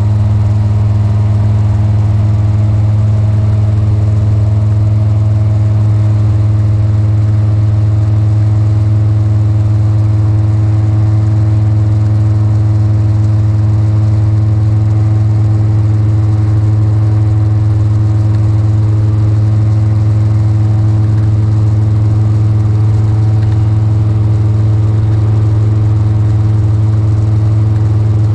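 Magni M24 gyroplane's engine and pusher propeller running steadily in flight, a loud even drone heard from inside the enclosed cockpit.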